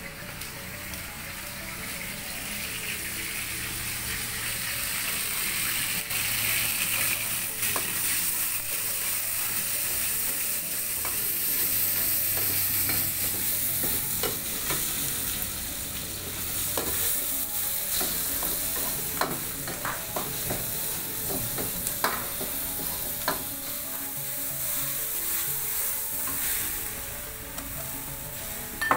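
Food sizzling as it is fried in a metal pan and stirred, with several sharp metal clinks of the utensil against the pan in the second half.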